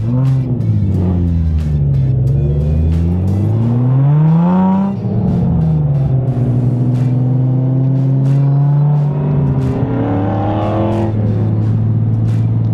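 Car engine pulling under acceleration. Its pitch rises and falls back sharply at a gear change about five seconds in, holds steady while cruising, then climbs and drops again with another upshift near the end.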